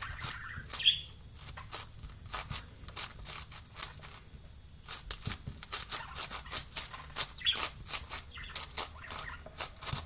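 Plastic layers of a 7x7 Rubik's cube clicking in quick, irregular turns as it is scrambled by hand, with a blue budgie chirping now and then.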